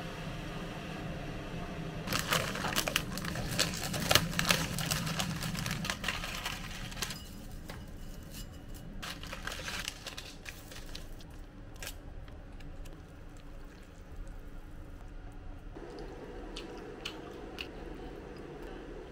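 Close-up kitchen handling sounds: a dense run of crackling from about two to six seconds in, then scattered clicks and taps, among them a seasoning sachet being torn open over a bowl of dry rice noodles.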